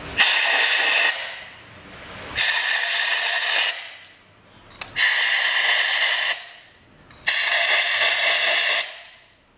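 Compressed-air blow gun blasting into the spark plug wells, four hissing blasts of about a second each with short pauses between them. The wells are being cleared of dirt so none falls into the cylinders when the plugs are unscrewed.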